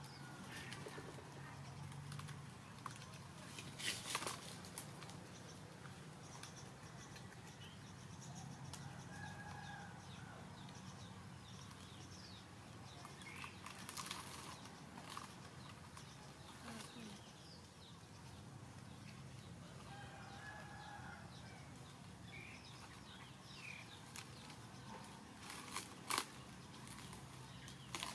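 Faint rustling and handling noises over a low steady hum, with a few sharper rustles and clicks and a handful of short, faint calls.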